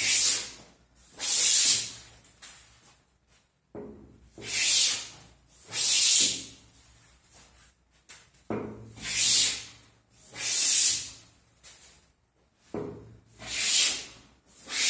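Hand plane taking shavings along the face of a softwood tabletop: a hissing cut on each push stroke, in pairs of strokes about every four seconds, with the plane's quieter return and repositioning between them.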